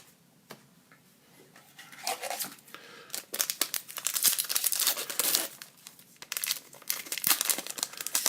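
Wrapper of a hockey trading-card pack being torn open and crinkled by hand, starting about two seconds in, with a second spell of crinkling near the end.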